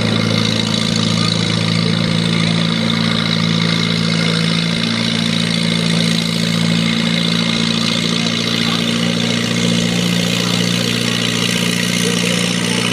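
Farm tractor engine running at a steady speed.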